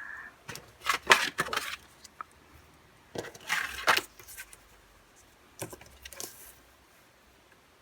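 Handling of CD album packaging: plastic and paper rustling and clicking in three short flurries, the last one fainter.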